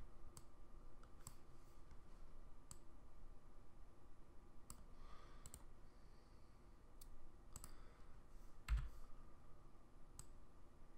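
Faint computer mouse clicks, single and double, scattered irregularly as the software is operated, with one louder click and a dull thump near the end.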